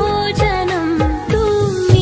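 Bollywood-style film song: a sliding, ornamented sung melody over a steady drum beat of about two hits a second.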